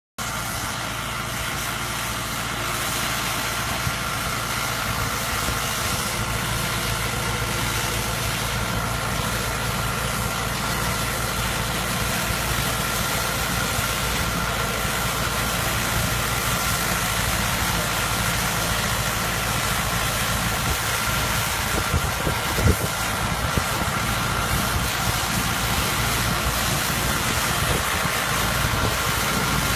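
Tractor engine running steadily as it drives a New Holland baler baling hay, with a few short knocks about twenty-two seconds in.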